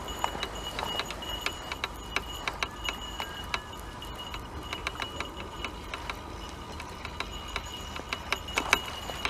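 Spinning reel being cranked to wind in line with a fish on: a run of light clicks, a few a second, over a thin high whine from the reel.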